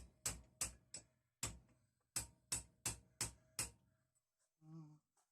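About ten sharp knocks on the metal switch mounting plate while it is being worked to take a larger replacement switch. They come in two quick runs of five or six, followed by a brief low hum near the end.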